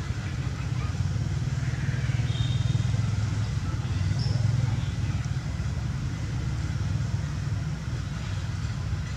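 Steady low rumble of an engine running, holding an even pitch throughout.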